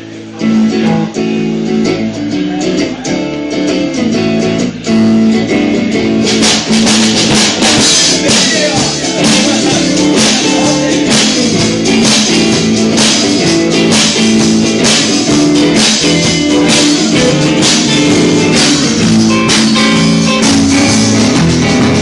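A live band playing an instrumental passage on electric guitars and bass over a drum kit. The drums and cymbals fill out about six seconds in, with a steady beat from then on.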